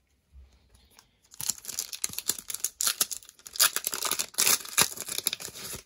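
Plastic wrapper of a trading-card cello pack being torn open and crinkled by hand: a dense crackling that starts about a second and a half in and carries on.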